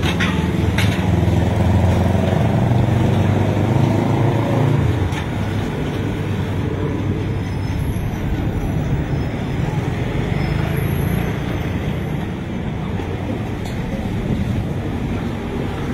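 Street traffic: an engine running close by for about the first five seconds, then steadier road noise from passing cars and motorcycles.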